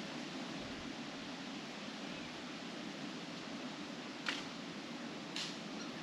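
Steady wind rustling through tree leaves. Two short, sharp sounds about a second apart near the end.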